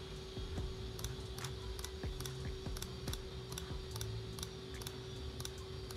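Logitech G304 wireless gaming mouse's button clicking repeatedly, about two to three sharp clicks a second, starting about a second in.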